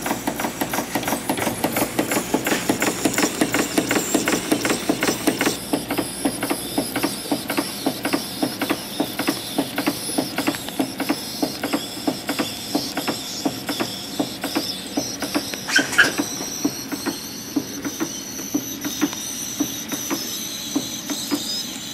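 Märklin 4159 live steam engine running free, a steady rhythm of exhaust chuffs and mechanical clatter that slows gradually as its boiler runs out of pressure. A brief high squeak sounds about two-thirds of the way through.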